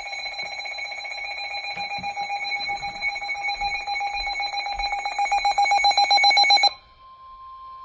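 Weather alert radio sounding its electronic alarm: rapid pulsing beeps that grow louder and cut off suddenly near the end, followed by a steady single tone, the warning alarm tone that comes before a severe thunderstorm warning.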